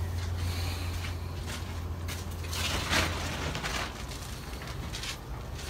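Hand tools being picked up and moved about on top of a truck engine: scattered metal clicks and rattles, with a louder scraping rustle about three seconds in. A low steady hum underneath weakens about halfway through.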